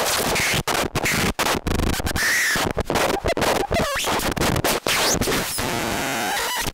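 Harsh electronic noise from a Particle Smasher + handmade noise generator and sound processor: a loud, dense wash of noise that keeps stuttering and cutting out, with short gliding whistles now and then.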